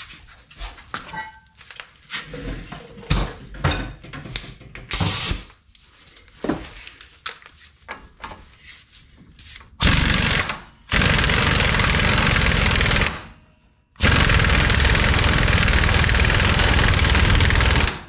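Scattered light metal knocks and clanks as parts are worked into place, then a power impact wrench running in two long bursts of about three and four seconds, drawing the rear axle through the new hub.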